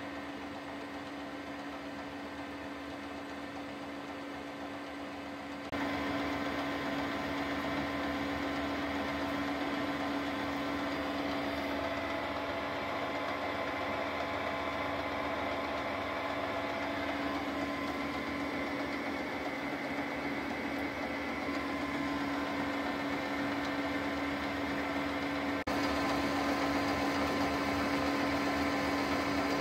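Metal-turning lathe running under power with a steady mechanical hum and a constant tone while it turns a steel rod into a stepped shaft. The hum jumps up in level about six seconds in and again near the end.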